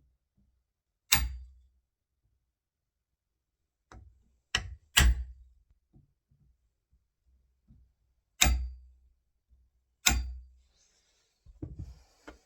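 Hammer striking a flat-ended wood chisel held against a door edge, chopping along the scored lines to recess the latch plate. About six sharp strikes at irregular intervals, some with a short ring, followed by a few lighter knocks near the end.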